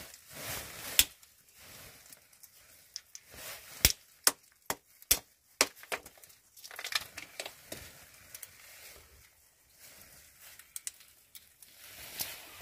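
Plastic bag crinkling and rustling as it is handled, with about six sharp knocks, the loudest about one second in and a quick run of them between about four and six seconds in.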